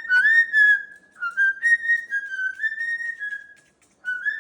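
Melodic, wavering whistling in several held phrases, breaking briefly about a second in and stopping for a moment near the end before starting again.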